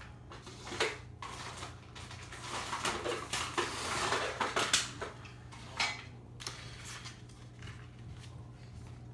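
Hard objects being handled: clicks and metallic clinking with rustling, busiest in the middle, with sharp knocks about a second in and near six seconds, over a low steady hum.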